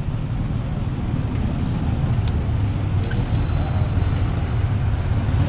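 Wind rushing over a bicycle-mounted camera's microphone while riding in city traffic, a steady low rush. About three seconds in, a thin high ringing tone starts and holds for a couple of seconds.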